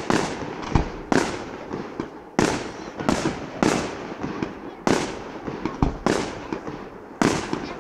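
Aerial fireworks shells bursting one after another, about ten sharp bangs, each trailing off before the next.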